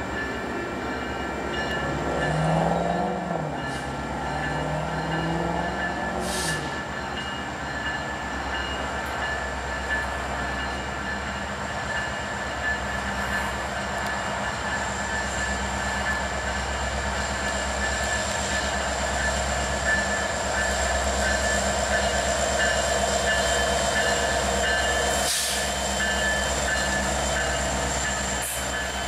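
Five Union Pacific diesel locomotives hauling a freight train at slow speed, their engines a steady low drone with high steady whines, growing somewhat louder as they draw near and pass. A brief wavering tone sounds about two seconds in.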